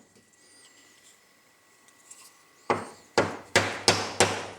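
A small mallet knocking a ball bearing down onto an angle grinder's armature shaft that stands on an anvil. After a pause of about two and a half seconds come five sharp blows, about three a second, each dying away quickly, pressing the bearing home until it is seated.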